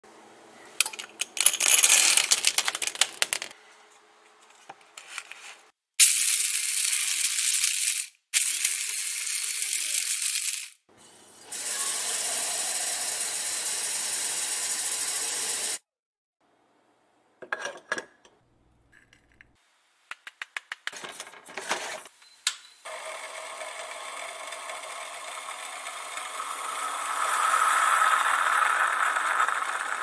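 Coffee beans rattling into the metal bowl of a Black+Decker SmartGrind blade grinder. The grinder's motor then runs in two bursts of a few seconds each, followed by steady running water from a kitchen tap. After a quiet stretch with clicks and metal clinks as a stainless moka pot is put together, a steady hiss builds and peaks near the end as the pot brews on an electric coil.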